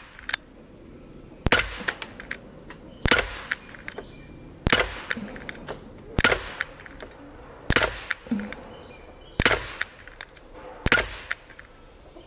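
Daisy Powerline 5501 CO2 blowback BB pistol firing seven shots in a steady string, about one every 1.6 seconds, each sharp pop followed by a fainter tick.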